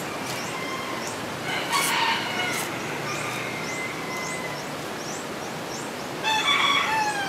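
Rooster crowing twice: a long drawn-out crow about two seconds in, and a shorter one near the end that falls in pitch as it finishes.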